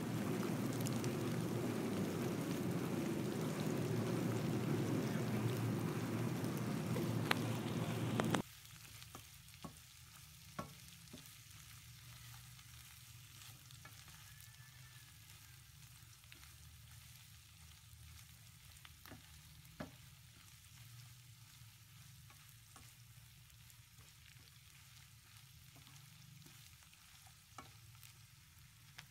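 Cabbage and mustard greens sizzling in hot oil in a nonstick wok as they are stir-fried with a spatula. The sizzle is steady for about eight seconds and then cuts off suddenly, leaving a faint hiss with occasional light clicks of the spatula.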